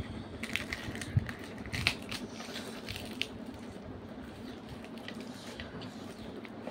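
Eating sounds: chewing and mouth smacks, with fingers tearing fried puri. Short sharp clicks and smacks come thickest in the first three seconds, then softer.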